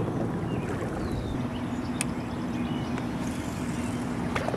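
Boat's electric trolling motor running with a steady hum, holding the boat against the current. A sharp click comes about two seconds in, and another near the end.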